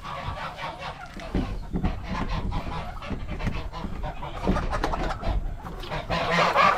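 Chickens clucking and calling, the calls growing louder and busier near the end, with low thumps of movement underneath.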